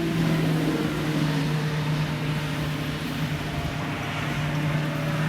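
An engine or motor running steadily with an even, low hum.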